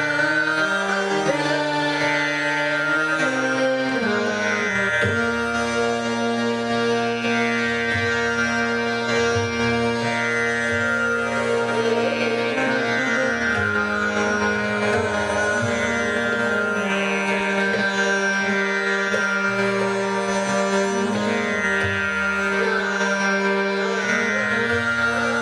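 Hindustani classical vocal music in raga Rageshree: a woman sings long held notes that step and bend in pitch, with harmonium following her line, tabla playing and a tanpura drone.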